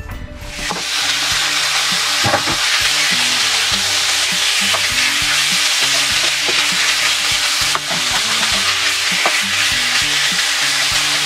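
Raw chicken pieces sizzling in oil in a nonstick frying pan, starting about half a second in and holding steady. A plastic slotted spatula stirs them, with occasional light taps and scrapes against the pan.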